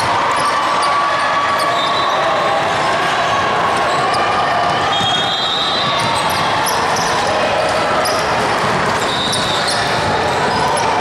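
Indoor basketball game: a steady echoing din of many voices in the gym, with the ball bouncing on the court.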